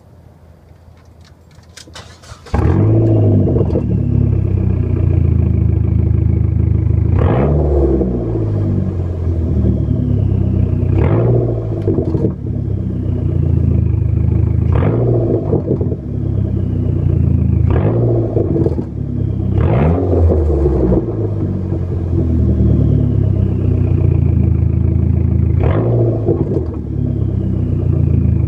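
2004 Dodge Neon SRT-4's turbocharged 2.4-litre four-cylinder, with a Mopar cat-back exhaust, starting about two and a half seconds in and then idling. It is blipped several times, each short rev falling back to idle. As the revs drop to about 800 rpm there is an exhaust rattle, which the owner likens to a fan blade being stopped with the fingers.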